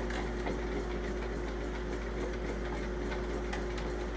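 Electric drain snake running steadily, its motor giving a steady hum with light repeated ticking from the spinning cable as it works through a hair clog in a shower drain.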